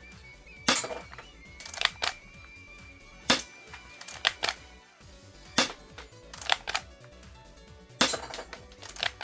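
Spring-powered air-cocking CZ75 toy airsoft pistol being worked: a run of sharp plastic clicks and snaps, some in quick pairs, about one a second, as the slide is racked and the gun is dry-fired or shot.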